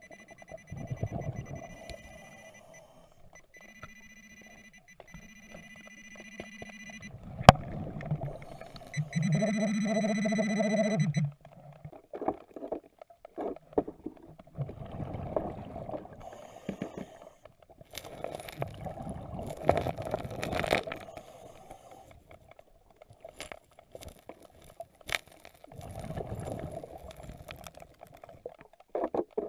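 Underwater metal detector sounding its target tones: a series of beeps, some low and some high-pitched, with a long loud tone about nine seconds in that cuts off suddenly. After that come irregular bubbling bursts of a scuba diver's exhaled breath.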